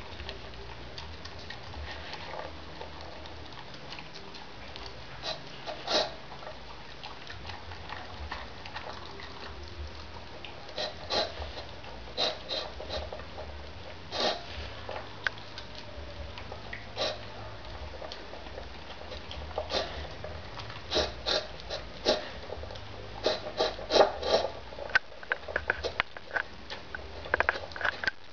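Dog eating soft cooked food from a plastic bowl: chewing and lapping with irregular sharp clicks and knocks against the bowl, sparse at first and coming thick in the last several seconds, over a low steady hum.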